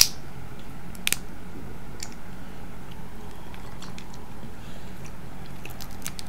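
Steamed snow crab leg shell snapped apart by hand: a sharp crack right at the start and another about a second later, then softer clicks as shell pieces are picked away.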